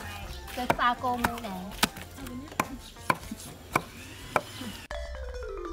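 Hatchet chopping through ox meat and bone on a wooden chopping block, about eight sharp strokes a little over half a second apart. Near the end the chopping stops and marimba-like background music comes in.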